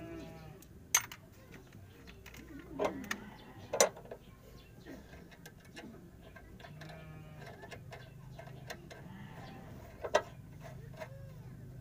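Several sharp metal clinks and knocks of a wrench and a new stabilizer link being fitted to a Suzuki APV's front suspension, with short runs of fast ticking as the wrench turns the link's nut.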